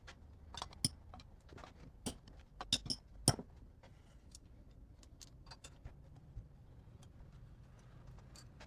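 Tools and small metal parts of a motorcycle cylinder head clicking and clinking as they are handled: a cluster of sharp clicks in the first three and a half seconds, then scattered faint ticks.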